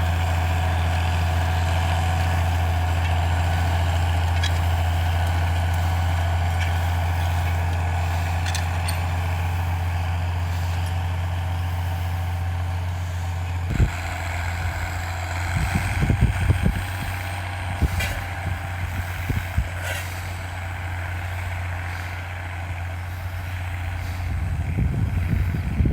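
A heavy engine idling steadily with a low, even hum. About fourteen seconds in the sound changes and scattered knocks and clatters come over the running engine.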